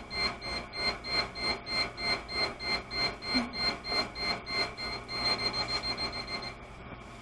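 FloodStop leak-detector alarm beeping, rapid and high-pitched, because its water sensor has been wetted in a test of the auto-shutoff valve. The beeping stops near the end.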